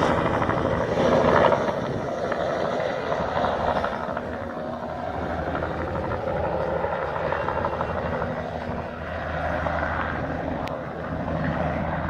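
Small Robinson helicopter flying past overhead, heard from the ground: steady rotor and engine noise, loudest about a second in and easing slightly as it moves away.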